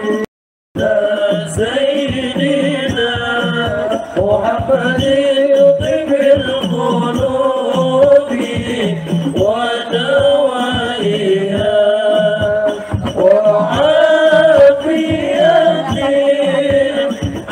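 Devotional chanted singing with music. The sound drops out for about half a second just after the start.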